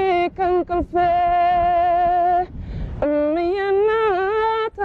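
A woman singing long, drawn-out notes with a wavering, ornamented pitch, with a short breath about halfway through before the next held note.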